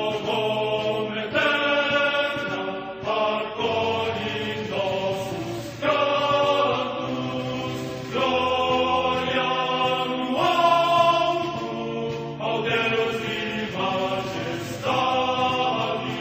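Background music of choral chant: voices singing long held notes that change every second or two.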